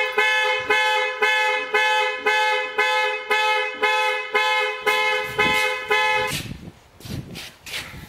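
A 2008 Dodge Nitro's alarm going off, sounding the horn in rapid repeated honks, about two to three a second, that cut off about six seconds in. A few soft knocks follow.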